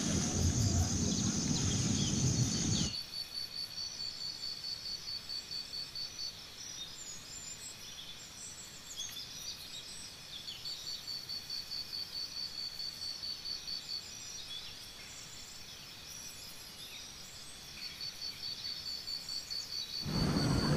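Insects chirping in a high, regular pulsing rhythm, with scattered short bird chirps, in hillside vegetation. A louder low rushing noise fills the first three seconds and cuts off abruptly, then returns just before the end.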